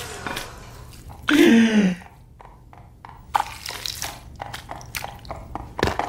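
A person's voice: humming fades out, then a short vocal sound with falling pitch comes about a second in. After that come a string of short, irregular clicks and taps.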